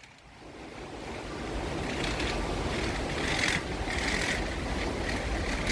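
Gale-force wind buffeting the microphone, with the sea surging below. It builds over the first two seconds, then blows steadily with gusts.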